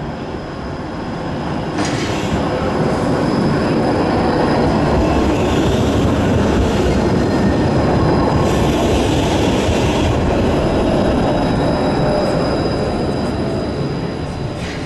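Articulated low-floor tram passing close by: a steady rumble of wheels on rail swells, peaks and then fades, with short stretches of higher wheel squeal as it goes by.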